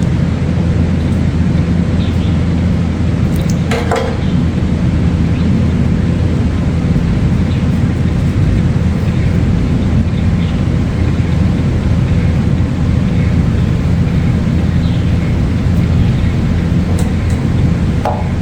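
A steady, loud machine hum with a low drone. A brief higher sound breaks through about four seconds in and again near the end.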